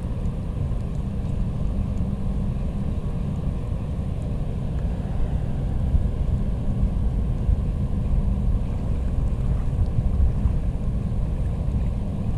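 Steady low rumble, with no clear rhythm or rise and fall.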